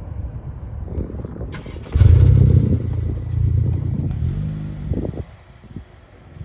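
2020 Honda Civic Si's turbocharged 1.5-litre four-cylinder, fitted with an aftermarket catback exhaust, running low at first. About two seconds in it suddenly gets loud and holds high revs for a couple of seconds. The revs then fall away and the engine drops back to a quieter rumble.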